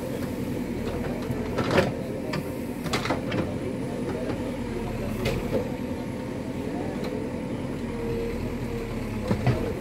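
Diesel engine of an excavator running steadily while it digs, with a few sharp knocks and clanks from the bucket and arm working the earth.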